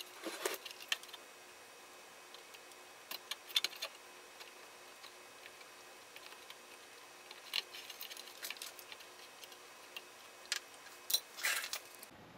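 Scattered light clicks and taps, in small clusters a few seconds apart, from hands working a soldering iron and a circuit board while desoldering a component.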